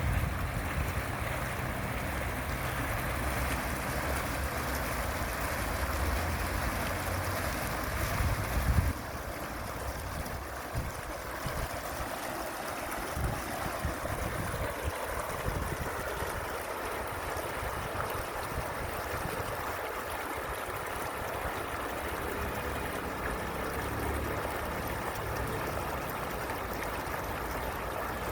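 Fountain water splashing and falling in a steady rush. A low rumble sits under it for about the first nine seconds and cuts off suddenly.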